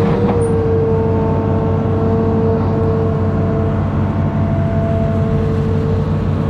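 Amphibious excavator's diesel engine running steadily, with a steady whine held over the engine's low drone.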